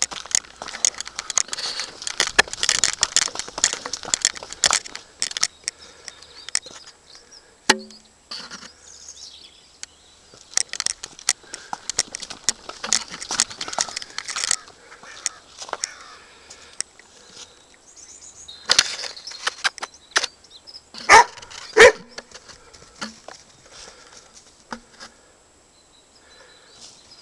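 Footsteps on frosty grass and a gravel path, an irregular run of short crackling clicks that comes and goes, with two louder sharp sounds about twenty-one seconds in.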